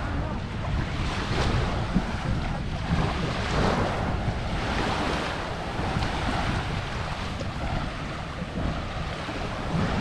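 Sea waves washing up on a sandy shore, surging and falling back every couple of seconds, with wind buffeting the microphone as a low rumble.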